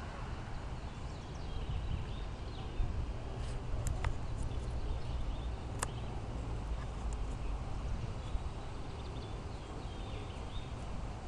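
Outdoor ambience: a steady low rumble with faint, scattered chirps and a few sharp clicks.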